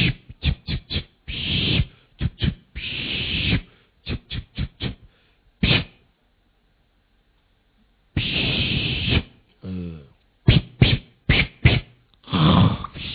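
A person making sound effects with the mouth: quick runs of sharp clicks or smacks between longer hissing blasts, with a break of about two seconds in the middle and a short voiced sound just before ten seconds in.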